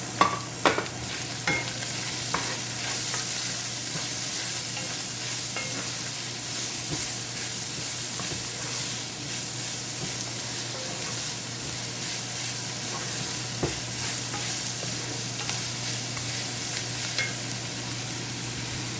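Sliced onions and cabbage sizzling as they fry in a pan, stirred with a utensil. A few sharp knocks of the utensil against the pan come in the first couple of seconds, then a steady sizzle with occasional light scrapes.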